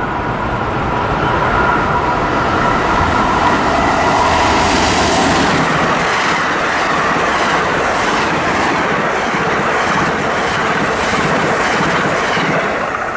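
Amtrak passenger train passing close at speed: a loud, steady rush of stainless-steel coaches rolling by, with a steady whine in the first few seconds, then a rhythmic clickety-clack of wheels over rail joints from about halfway through.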